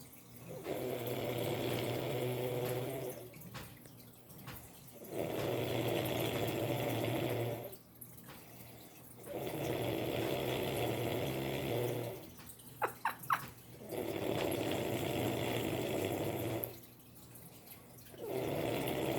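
Loud snoring: five long snores about every four and a half seconds, each lasting two to three seconds, the last beginning near the end. A few short clicks fall in one of the pauses.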